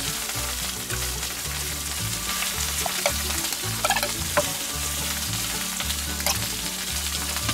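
Steady sizzle of food frying on a hot fire-plate griddle, with a few light clicks of a metal spoon against a steel bowl about three to four seconds in and again near six seconds.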